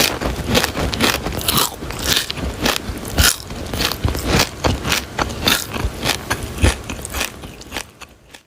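Gritty crunching and scraping in quick, irregular strokes, like loose stone or concrete mix being pushed and scraped. It fades out near the end.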